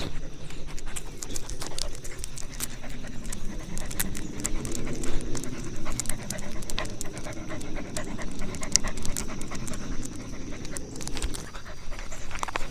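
A dog panting in quick, steady breaths, with scattered light clicks.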